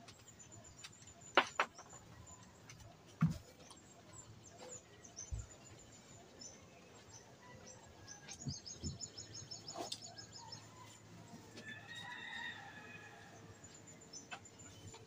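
Scattered knocks and thumps as things are handled and set down on a bamboo hut's floor, the loudest two in the first few seconds. Between them come quick runs of small-bird chirps, and a chicken clucks toward the end.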